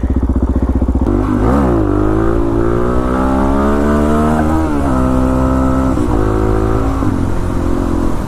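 Suzuki DR-Z400SM's single-cylinder four-stroke engine idling with an even low pulse, then revving and pulling away. It accelerates with a steadily rising note and upshifts, the pitch dropping at each shift, about five seconds in and again near seven.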